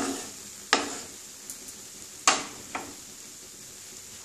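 A spatula knocking against a non-stick wok while cooked rice is stirred in it. There are four sharp knocks over the first three seconds, each with a short ring.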